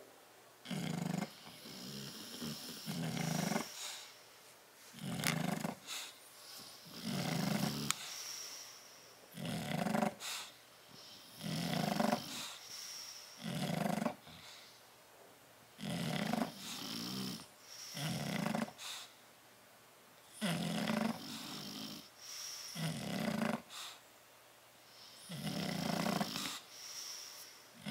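Bulldog snoring in its sleep: regular snores roughly every second or two, often in close pairs of breaths.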